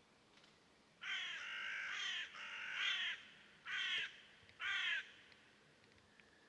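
A bird calling four times, starting about a second in. There are two longer calls, then two short ones, each made of quick falling notes.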